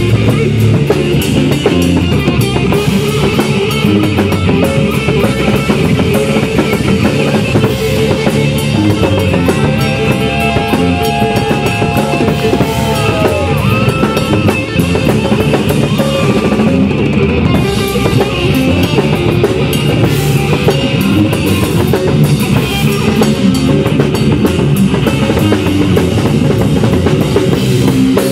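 Three-piece rock band playing live: distorted electric guitar, bass guitar and a pounding drum kit in an instrumental passage, with a few held, bending notes riding over the top near the middle.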